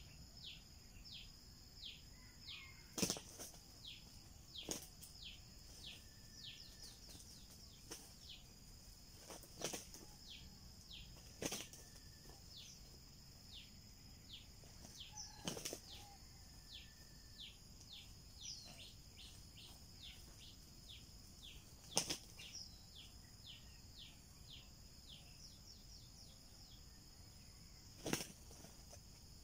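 Red junglefowl roosters fighting, with sharp bursts of wing flapping every few seconds. Under them runs a steady high insect buzz and short falling chirps repeated under a second apart.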